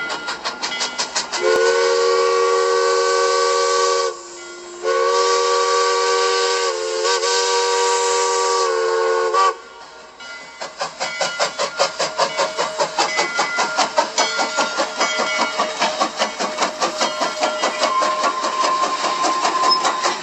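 Steam locomotive's chime whistle blowing two blasts, a short one then a long one, several notes sounding together. Then the locomotive's exhaust chuffing, about three beats a second, as it passes.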